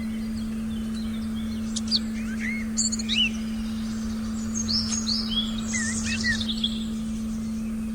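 Forest birds chirping and whistling in short calls, busiest in the second half, over a steady pure hum-like tone that holds unchanged throughout.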